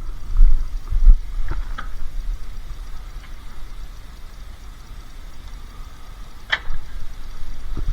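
Scrap being loaded onto a van: a few dull bumps in the first two seconds and one sharp clank about six and a half seconds in, over a steady low rumble.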